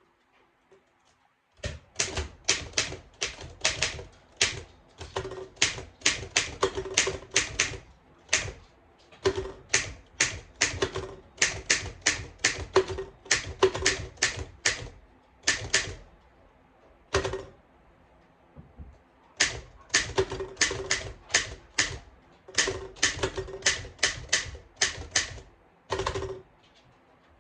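1910 Underwood manual typewriter being typed on, its typebars clacking against the platen in runs of keystrokes about two or three a second, broken by a few short pauses. The machine is working again after repair.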